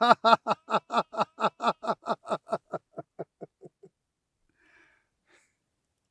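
A man laughing: a quick run of short 'ha-ha' bursts, about six a second, that grows weaker and dies away after about four seconds. Two faint breaths follow.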